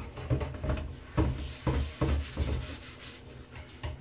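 Cast iron pan being scrubbed by hand in a stainless steel sink: a run of quick, hard scrubbing strokes, then lighter ones in the last second or so, lifting off old seasoning and carbon loosened in a lye bath.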